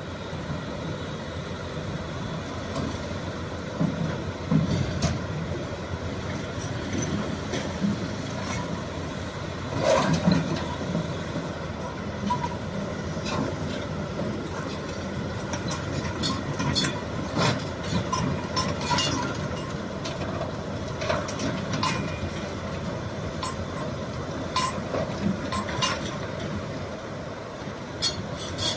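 Shantui excavator's diesel engine running steadily, with scattered metallic clinks and knocks from the working machine. The knocks are loudest about four seconds in, around ten seconds in, and in a cluster a little past halfway.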